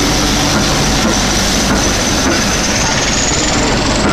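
A double-headed train pulling away: BR Standard 2-6-4 tank steam locomotive 80002 and Class 20 diesel 20031, whose English Electric engine runs under load. The sound is a loud, steady working noise with regular beats just under two a second and a high whine that rises slightly near the end.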